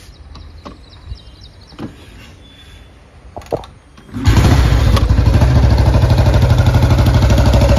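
Old Royal Enfield Bullet single-cylinder motorcycle engine being started: a few short knocks, then it catches about four seconds in and runs loud with a rapid, even beat. The engine is unrestored and due for a full rebuild.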